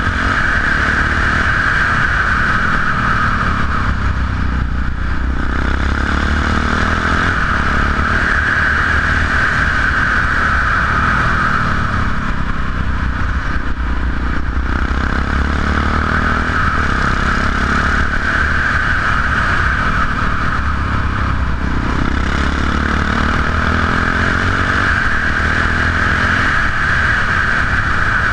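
Yamaha XT660X single-cylinder engine with Leo Vince aftermarket exhausts, running steadily at road speed. The rider eases off the throttle three times, about five, fourteen and twenty-one seconds in, and pulls again each time.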